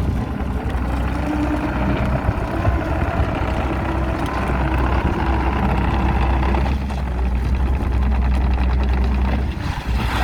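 JCB 48Z-1 mini excavator's Perkins 404D-22 four-cylinder diesel engine running steadily, with a faint whine that slowly rises in pitch over the first several seconds and a change in the sound about seven seconds in.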